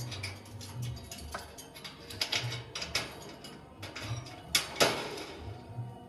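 Lovebird's beak pecking and gnawing at corn: irregular clicks and rasping scrapes, with one sharper crack about three-quarters of the way through.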